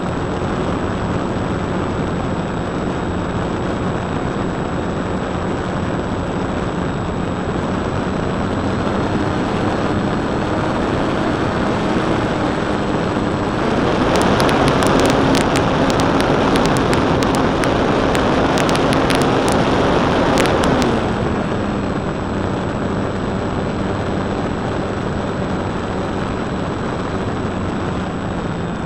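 Precision Aerobatics Extra 260 radio-control model aeroplane in flight, heard from a tiny camera taped to the airframe: steady wind rush over the buzz of its electric motor and propeller. About halfway through it grows louder and crackly for several seconds, then the motor tone drops as the throttle comes back.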